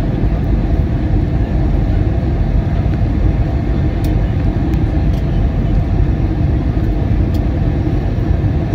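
Steady cabin roar of an Airbus A320 on approach, heard from inside the passenger cabin: engine drone and rushing airflow.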